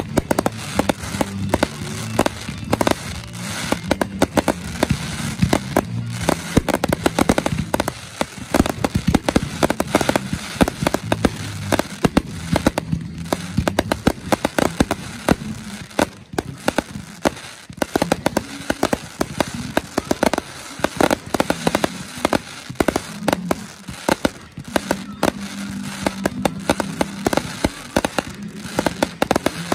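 Dense barrage of aerial firework shells bursting, with crackling: a rapid, irregular string of bangs, several a second, with no let-up.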